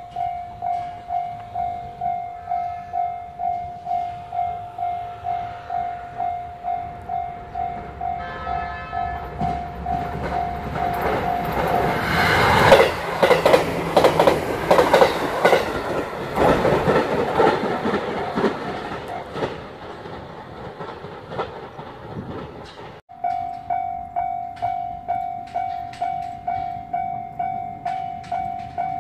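Japanese level-crossing alarm ringing in a steady pulse about twice a second. A JR Kyushu 787 series electric limited-express train then passes close by, its rumble and wheel clatter over the rail joints swelling to drown the alarm and loudest about 13 to 17 seconds in. After a cut, a crossing alarm rings again at the same pulse.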